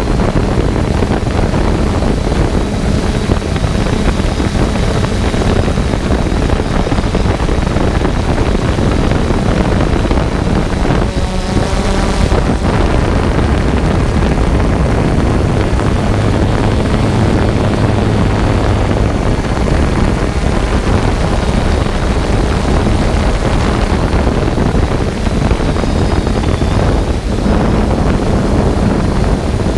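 A drone's motors and propellers running steadily, heard through a GoPro camera mounted on the drone, with wind rushing over the microphone.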